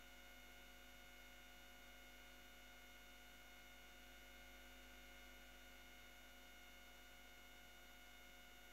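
Near silence: a faint, steady electrical hum with a light hiss, unchanging throughout.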